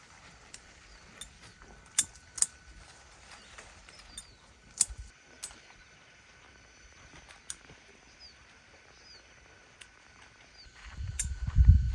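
Outdoor garden ambience: a few faint short bird chirps over a steady faint high tone, broken by several sharp single clicks. Near the end comes a louder stretch of low thumps and rustling.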